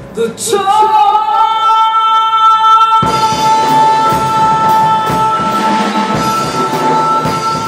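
A female vocalist holds one long, high, sustained note over live band accompaniment, the note scooping up slightly as it starts. The accompaniment swells in fuller about three seconds in.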